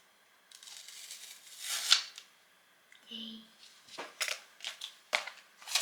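Kitchen items being handled: a rustle that builds to a sharp crinkle, then a quick run of short clicks and taps.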